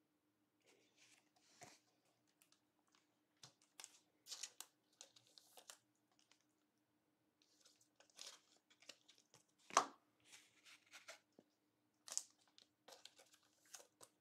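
Faint rustling and crinkling of trading cards and foil card packs being handled, with scattered light ticks and one sharper tap about ten seconds in.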